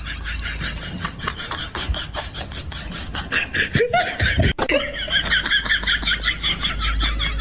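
Laughter in quick, even pulses of about five a second, turning higher-pitched a little past the middle.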